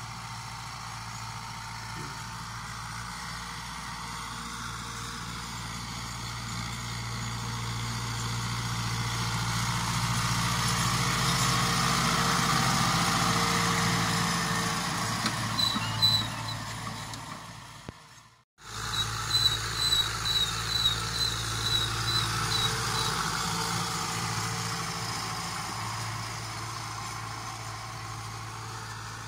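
New Holland Al-Ghazi 640 (Fiat 640) tractor's diesel engine running steadily under load while pulling a disc harrow, growing louder as it passes close by about halfway through. The sound cuts out briefly near two-thirds of the way, with a run of short high-pitched chirps just before and after the break.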